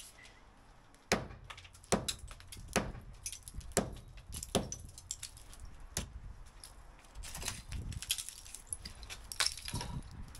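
Sharp knocks and clinks of brick and rubble being broken out of a brick pier, one hit about every second, with a denser clatter of loose debris from about seven to ten seconds in.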